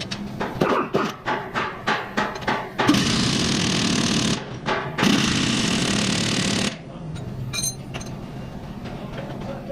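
A few sharp metallic knocks, then an impact wrench hammering in two bursts of about a second and a half each, running a nut on the strut assembly.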